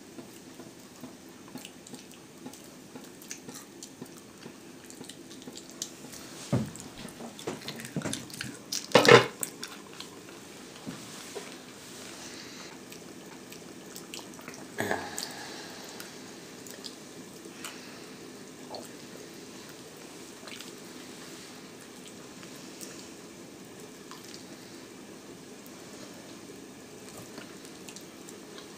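Wet gnawing and chewing on a T-bone steak bone, close up: a run of small lip smacks and sucking clicks, with a few louder smacks from about 6 to 9 seconds in, the loudest near 9 seconds, and another near 15 seconds.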